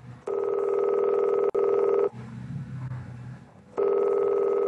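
A telephone rings twice. Each ring is a steady electronic tone with a fast flutter, lasting a little under two seconds, with a pause of about the same length between rings: the sound of an incoming call.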